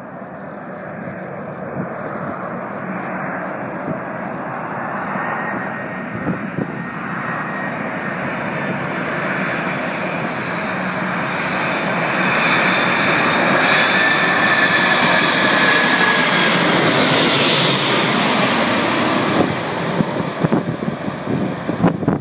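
Boeing 747 freighter's jet engines on landing approach, the rushing engine noise with a high whine building steadily as the plane closes in and passing loudest overhead about two-thirds of the way through. Near the end, gusts of wind from the jet's wake buffet the microphone.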